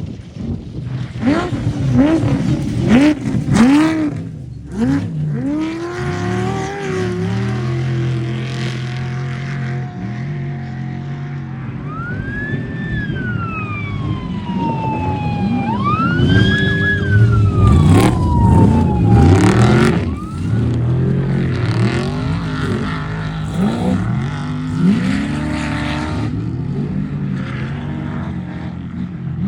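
Off-road race truck engines revving hard and accelerating past, the pitch climbing and dropping over and over. About halfway through, a high whine rises and falls twice.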